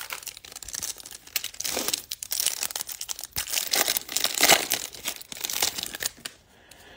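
Foil wrapper of a 2020 Bowman baseball card pack being torn open and crinkled by hand, a dense crackling that dies away about six seconds in.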